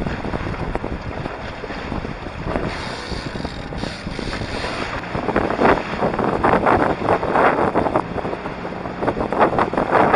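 Wind buffeting the microphone over water rushing and splashing along the hulls of a small trimaran under sail through choppy sea. The rush grows louder and gustier about halfway through, in irregular surges.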